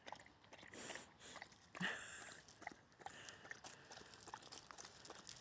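A dog lapping water, a quick run of small wet clicks and splashes.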